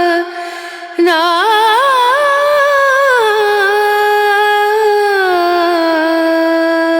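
Background music: a solo voice singing a slow melody with gliding ornaments and long held notes. It pauses briefly just after the start and comes back in about a second in.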